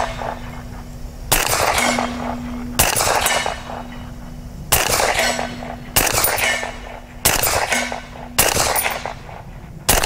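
Seven semi-automatic shots from a suppressed 8.6 Blackout AR pistol, spaced about one to two seconds apart, each with a short echo. Between shots a steady low ring lingers from the struck steel target.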